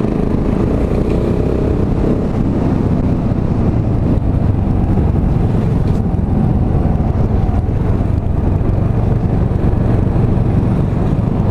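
KTM Duke motorcycle engine running steadily under way, with wind noise on the microphone.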